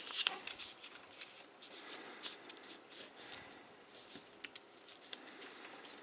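Paper rustling and crackling as an origami sheet is folded and creased by hand, with many small crisp ticks and one sharper crackle past the middle.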